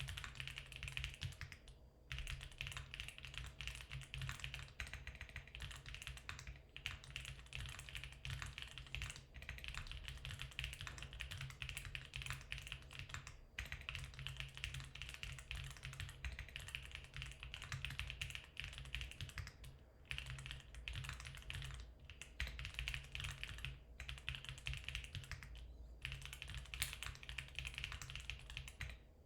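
Typing on a Geon Works F1-8K mechanical keyboard with factory-lubed Geon HG Black linear switches, a 1 mm aluminium plate, foam dampening and Lin Works keycaps. It is a dense, steady run of keystrokes, broken by short pauses every few seconds.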